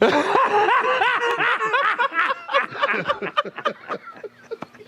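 Laughter right after a joke: a quick run of loud pitched 'ha' pulses that thins out and fades after about three seconds.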